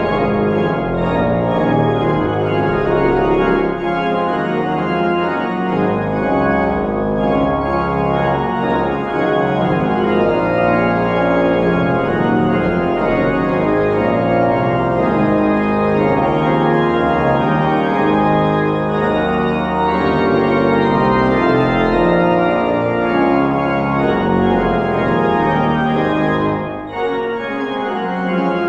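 Organ postlude at the close of a church service: sustained organ chords that shift every second or so, with a brief break a little before the end.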